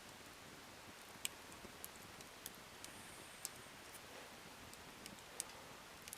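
Campfire crackling faintly: a few scattered, irregular sharp snaps over a quiet steady hiss.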